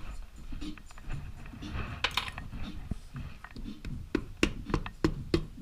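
Metal hand tools clinking and tapping against the engine's cases, with a quick run of sharp taps in the second half.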